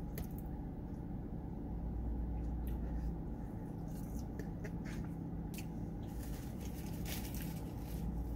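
Close-up chewing and mouth sounds of eating chili cheese fries, with small clicks and scrapes from a plastic fork and cardboard tray, over the steady low hum of an idling car engine and its air conditioning. Paper rustles briefly near the end.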